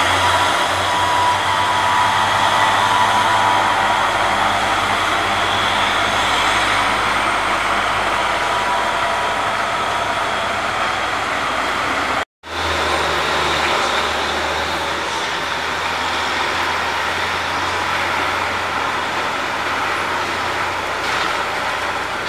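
Heavy diesel trucks and other traffic climbing a steep hairpin bend, engines running steadily with a low hum. The sound breaks off for an instant about twelve seconds in and picks up again with a stronger low engine hum.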